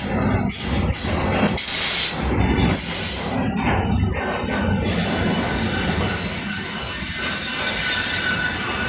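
A train running along the track: a continuous rolling rumble and hiss with surges of high hiss, without the regular clickety-clack of wheels over rail joints.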